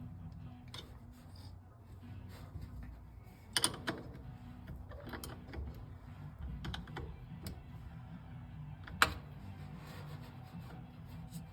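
Scattered small clicks and taps of metal battery-terminal hardware and hand tools being handled while a terminal is fitted to a battery post, with two sharper clicks about three and a half and nine seconds in, over a low steady hum.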